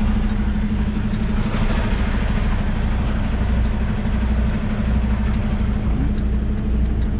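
Semi truck's diesel engine running steadily at idle, a constant low drone.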